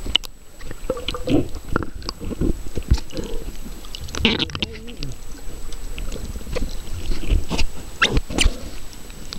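Muffled underwater noise from a camera held below the surface among snorkelers: irregular bubbling and gurgling, with clicks and knocks from the camera and fin kicks moving the water.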